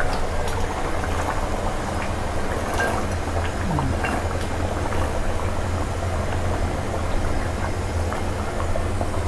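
Thick pork panang curry bubbling in a pot over full heat, with small pops, over a low steady hum.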